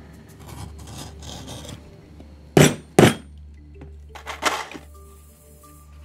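Rapid scraping strokes of a blade across leather along a steel straightedge, then two sharp hammer blows on a snap-setting tool about half a second apart, followed by a few lighter knocks as the snap is set. Soft background music with held notes runs underneath.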